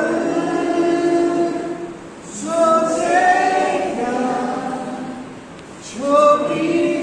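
A group of voices singing together in long held notes, in three phrases with short breaks between.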